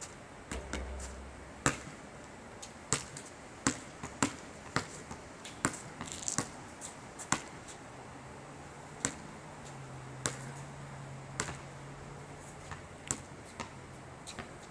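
A basketball bouncing on an asphalt outdoor court: a run of sharp bounces, about one every half second to second for the first seven seconds, then fewer and further apart.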